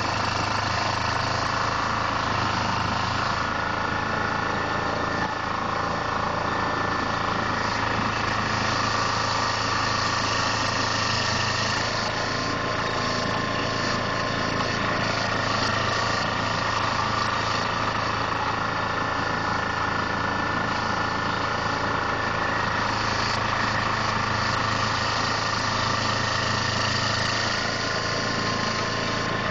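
2004 Carlton SP4012 stump grinder's engine running steadily, its cutter wheel down in the ground-up stump hole.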